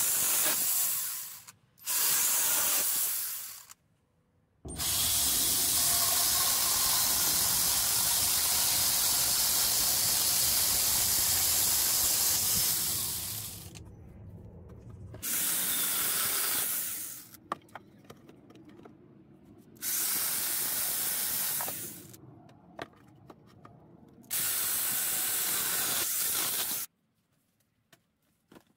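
Cordless angle grinder fitted with a chainsaw-bar attachment, running in bursts as it saws through branch wood. Two short bursts, then a long cut of about eight seconds, then three shorter bursts of two to three seconds each.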